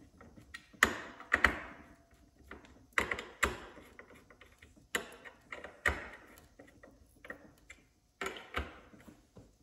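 Steel ring gear clinking and clicking against the Team clutch as it is turned and set into place by hand. The metallic clicks come irregularly, with sharper knocks about a second in, around three, five and six seconds, and just past eight seconds.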